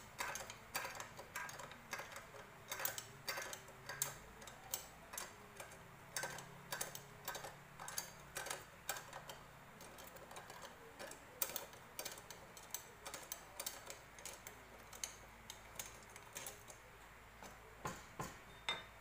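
Irregular small metallic clicks and taps, about two or three a second, from hand work on a Yamaha Jupiter Z's cylinder head while its rocker arm shaft is being worked loose.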